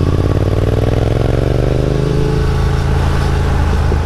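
Triumph Thruxton 1200's parallel-twin engine running through aftermarket Vance & Hines exhaust pipes, heard from the saddle while riding. The exhaust note rises in pitch over the first couple of seconds as the bike accelerates, then holds steady.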